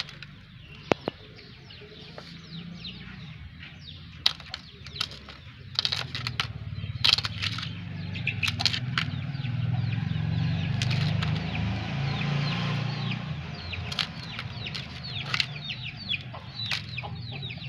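Chickens calling around the yard, many short high falling calls from hens and chicks, over the clicks and squelches of a hand kneading wet flour dough in a steel bowl. A low rumble swells in the middle.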